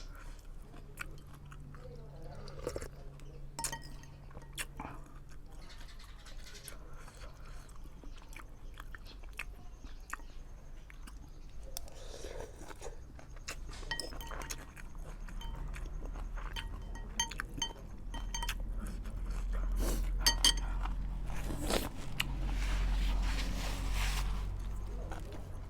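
A person eating a bowl of instant noodles: chewing, with many small clicks and clinks of a spoon against the bowl. A louder low rumble comes in about two-thirds of the way through.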